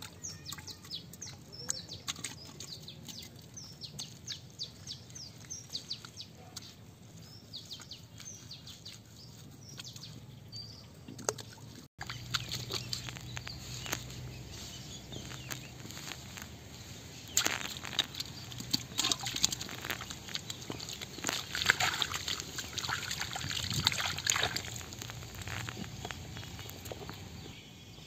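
Small birds chirping in quick, repeated short calls; after a cut, hands splashing and sloshing in muddy water among leafy vines, in irregular bursts that are loudest toward the middle of the second half.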